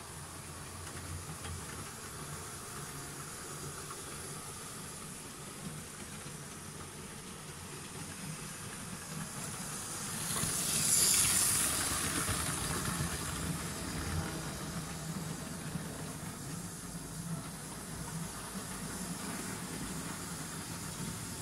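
Model railway train running on the layout with a steady low motor hum, and a loud hiss swelling up about ten seconds in and fading over a couple of seconds.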